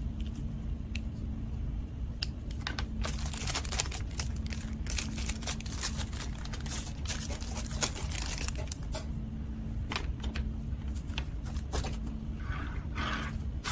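Thin plastic toy bags crinkling and rustling, with small clicks of hard plastic toys being handled; busiest through the middle and again near the end, over a steady low hum.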